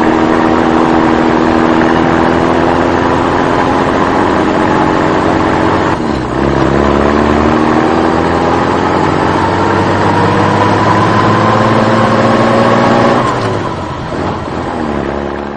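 Vehicle engine running at a steady note, then rising slowly in pitch from about six seconds in as it revs up. Near the end it drops away and fades out.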